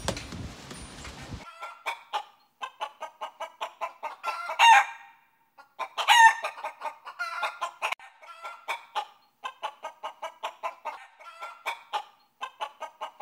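Chicken clucking in quick runs of short clucks, starting about a second and a half in, with two louder squawks near the middle.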